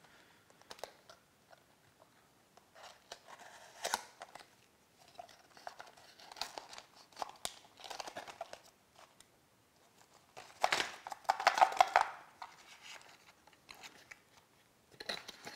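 Handling sounds of a small cardboard product box being opened: scattered clicks and rustles as its flap is worked open, then a louder crinkling stretch about ten to twelve seconds in as the foil anti-static bag inside is pulled out.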